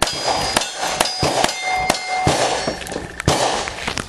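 Single-action revolver shots at steel plate targets, each shot followed by the ring of a struck plate. The shots come roughly every half second for about two seconds, then one more a little after three seconds in.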